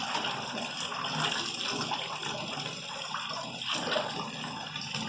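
Water running steadily in a bathtub, with a few small splashes.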